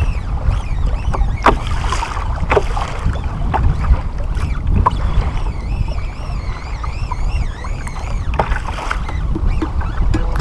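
Wind buffeting the microphone and choppy ocean water splashing against a plastic kayak hull, with scattered knocks and splashes. A faint wavering whistle comes in for a few seconds midway.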